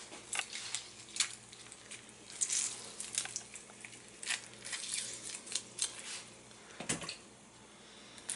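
Lemon halves squeezed by hand over a small metal mesh strainer: irregular wet squishes and crackles of juice and pulp, with light clicks of a knife working the fruit and a sharper knock about 7 seconds in.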